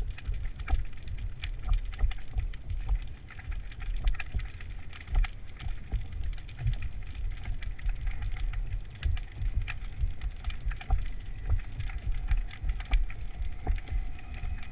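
Underwater sound picked up by a submerged action camera: a low, fluttering rumble of water moving against the camera, with many scattered sharp clicks and crackles.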